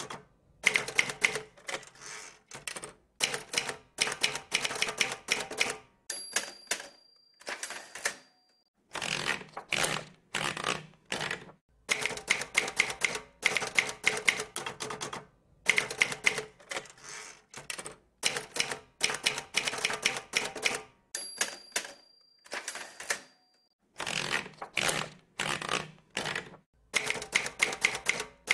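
Typewriter sound effect: runs of rapid key strikes in short bursts with brief pauses between them. A short ring sounds twice, about six seconds in and again about twenty-one seconds in.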